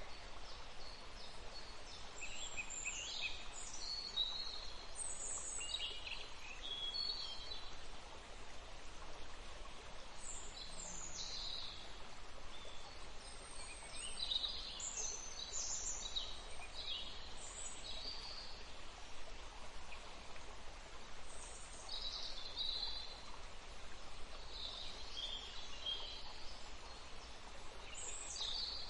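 Outdoor ambience of birds chirping in short, scattered calls over a steady background hiss.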